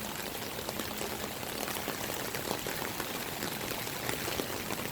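Steady downpour of rain with water pouring and splashing: many small drop patters over a continuous hiss of running water.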